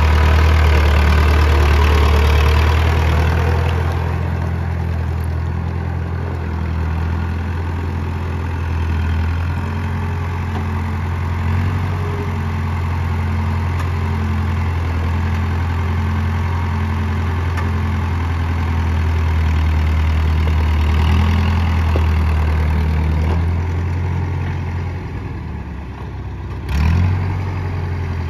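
Massey Ferguson 165's four-cylinder diesel engine running steadily as the tractor drives along, loudest in the first few seconds and a little quieter as it moves off. There is a brief loud bump near the end.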